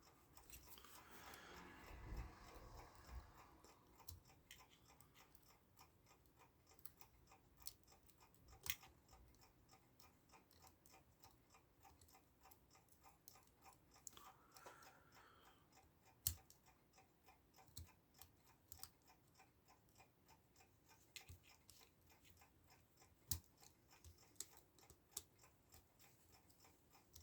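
Near silence broken by faint, scattered small clicks and taps, a few of them sharper: pliers, wire and small metal clock parts being handled while a clock movement is wired up.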